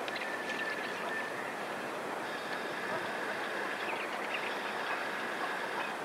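Steady outdoor background rush with a long, thin whistling tone that breaks off once and resumes, and a few short distant bird calls about four seconds in.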